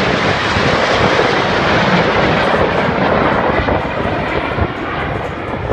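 Aircraft engines of a formation of airplanes flying past: a loud, steady rushing drone that eases off a little after about three and a half seconds.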